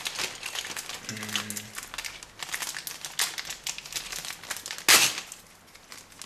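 Paper and plastic packaging crinkling and rustling as it is handled, in quick irregular crackles, with one loud crackle about five seconds in.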